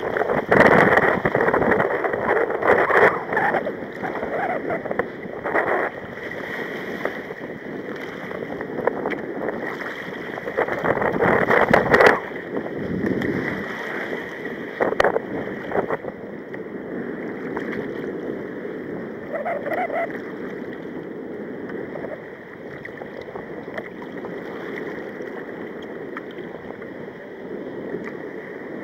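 Choppy sea water splashing and sloshing against a sea kayak's hull, with wind buffeting the microphone. Loud, uneven splashes come through the first dozen seconds, ending in one hard crash, then it settles into a steadier wash.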